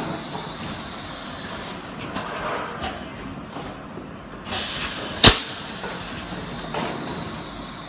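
Plastic-bottle blow-moulding machine running: a steady mechanical noise with bursts of air hiss, and one sharp clack about five seconds in.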